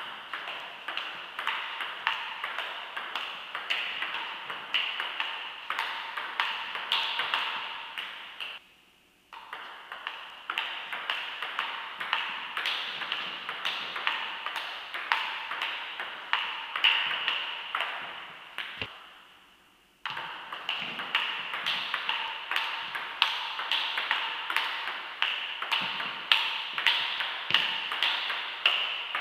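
Table tennis rally: the celluloid ball clicking back and forth off bats and tabletop, about two or three hits a second, each with a ringing tail. The run breaks off twice, about 9 and 20 seconds in, and a new rally starts.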